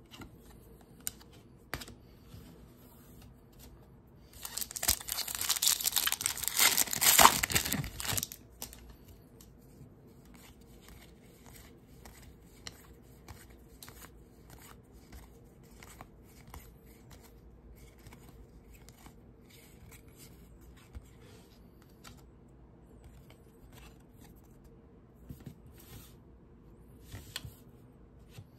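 A baseball card pack's wrapper being torn open and crinkled for about four seconds, starting a few seconds in; then a long run of small clicks and flicks as the cards are thumbed through one by one and set down on the desk.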